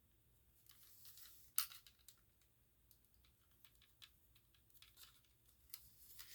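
Faint handling noise from working at a plastic smoke-alarm mounting bracket: light scattered clicks and brief rustling, with one sharper click about a second and a half in.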